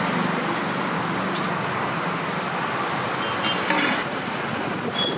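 Steady roadside traffic noise, with a brief clatter about three and a half seconds in.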